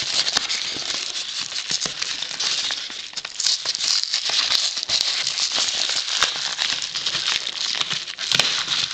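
Yellow padded mailer envelope crinkling and rustling continuously as it is shaken and worked open by hand, dense with small crackles.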